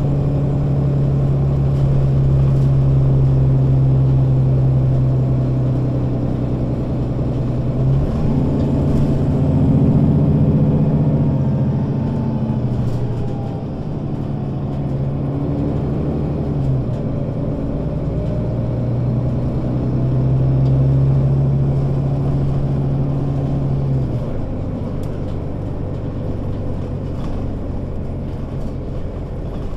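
Mercedes-Benz O 530 Citaro city bus engine running on its route: a steady drone that breaks about eight seconds in into rising, shifting tones, settles into a steady drone again, then drops away about 24 seconds in.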